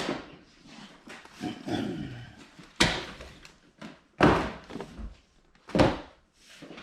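Three sharp thuds of boxed toys being tossed onto a pile, about a second and a half apart, with lighter rustling and clatter of packaging between.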